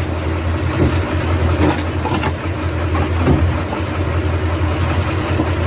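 Truck engine idling steadily, with a few scattered knocks over it.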